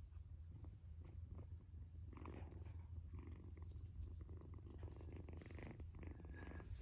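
Kitten purring steadily, a faint low rumble, with a few soft ticks and rustles over it.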